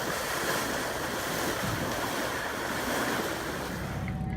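Wind on the microphone and rushing sea water at sea, a steady noisy wash. About four seconds in it cuts to a steady low hum.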